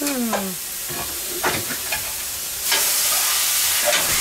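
Beef burger patties sizzling on a hot flat-top griddle. The sizzle gets louder about two and a half seconds in, as a fresh ball of minced beef is pressed flat onto the plate with a burger press.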